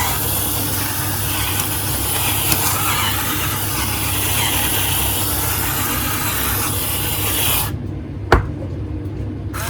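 Pepper mill grinding black pepper with a steady rasp. It stops a little under eight seconds in, and a single knock follows.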